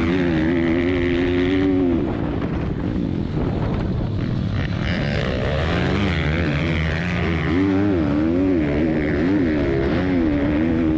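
Pit bike engines revving hard under race throttle, the pitch holding high, dropping sharply about two seconds in, then rising and falling with throttle changes.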